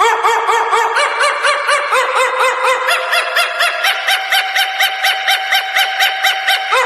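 Music intro: a fast, even run of short notes that bend up and down, about four a second, over a held tone that steps up in pitch about halfway through, with no bass yet.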